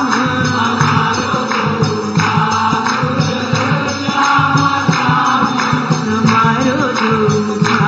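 Devotional bhajan: singing over rhythmic percussion with a steady, repeating beat.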